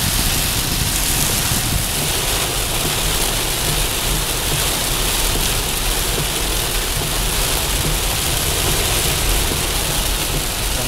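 Heavy rain falling on a vehicle, heard from inside the cab: a steady, dense hiss with a low rumble underneath.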